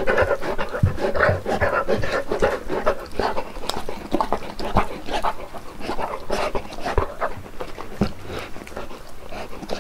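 A Saint Bernard eating cake off a board, with irregular wet chewing and lip-smacking clicks and panting breaths between mouthfuls.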